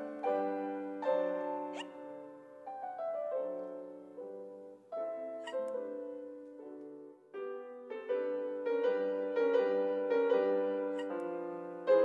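Light piano music playing a simple melody of single struck notes, each fading out, with short breaks about five and seven seconds in.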